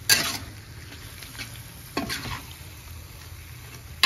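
Spatula stirring food in a frying pan with a light sizzle, three sharp strokes against the pan about two seconds apart.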